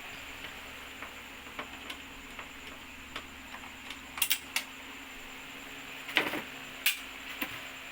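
A handful of sharp clicks and light knocks of hand tools and screws on the TV's casing and bracket as the bracket is being removed, over a steady low hum. Two clicks come close together about four seconds in, and a few more single knocks follow near the end.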